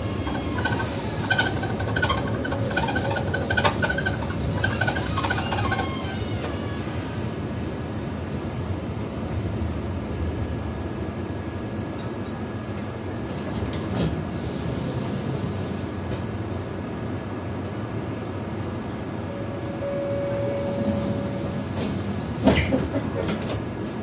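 Tram running on its rails: a steady rumble of wheels and drive throughout, with wheel squeal against the rails in the first few seconds. A short steady tone sounds and then a sharp clack comes near the end.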